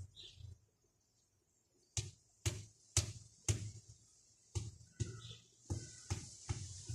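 A series of sharp knocks as a brick is tapped down into place in the soil to set garden edging. Four come about half a second apart starting about two seconds in, then five more, a little less even.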